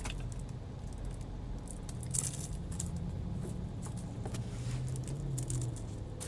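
Chef's knife clicking and scraping on a plastic cutting board as an onion is cut and peeled: scattered light clicks and rustles, over a low steady hum.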